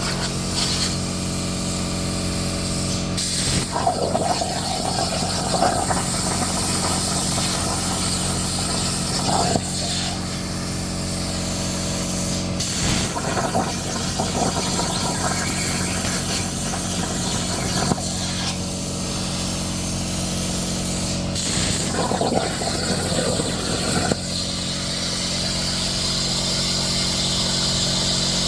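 Plasma cutter cutting through a steel saw blade: a loud, steady hissing arc over a constant hum, with a few brief clicks along the way. It cuts off suddenly at the end as the arc stops.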